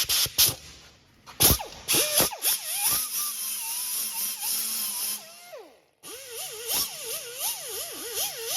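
Angle grinder with a 3M Roloc Scotch-Brite surface-conditioning disc, cleaning rust off a wheel hub. It starts with a few short blips, then runs with its pitch wavering up and down. It stops for a moment about two-thirds of the way in, then starts again.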